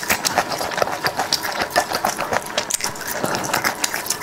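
Close-up crunching and chewing of crispy pan-fried beef bone marrow: a rapid, irregular stream of crisp crackles and clicks.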